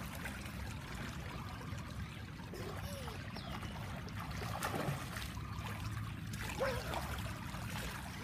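Swimming-pool water trickling and lapping steadily as a child swims breaststroke across the pool to the edge, with no big splashes.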